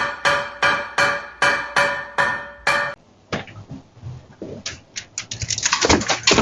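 Music of repeated keyboard chords struck about three times a second, which cuts off about three seconds in. Then come scattered sharp clicks and knocks that grow quicker and denser near the end.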